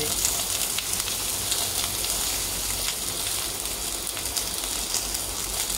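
Sliced onions sizzling in freshly added oil in a clay pot: a steady hiss with scattered faint ticks.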